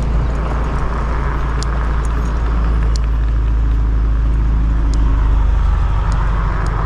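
Steady wind rumble on the microphone and road noise from riding an electric scooter in traffic, with a car engine running close by.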